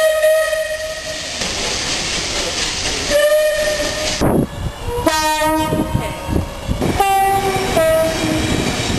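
A train's two-tone horn sounds over the running noise of a passing train. A held note ends about a second and a half in. A short blast follows, then a loud chord about halfway through, then short blasts alternating high and low notes near the end.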